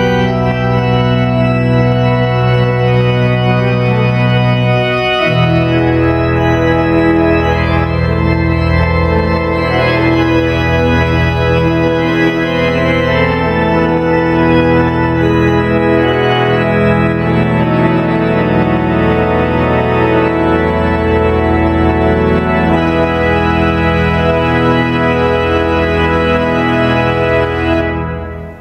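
Three-manual Schantz pipe organ played loudly: sustained chords over a deep pedal bass, the bass moving to a new note about five seconds in. Near the end the final chord is released and the sound dies away in the hall's reverberation.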